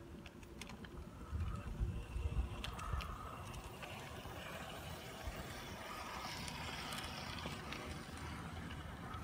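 LGB garden-railway model locomotive running past on outdoor track: a steady motor and gear whirr with the wheels clicking over the rails, and a low rumble that is loudest a couple of seconds in as it comes close.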